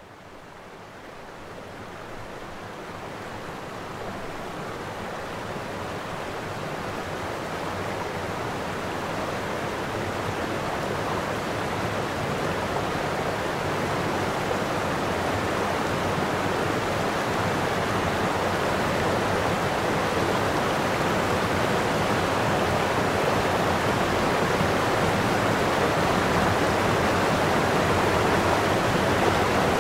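Water pouring over a curved concrete weir into a shaft, a steady rushing that grows louder over the first half and then holds.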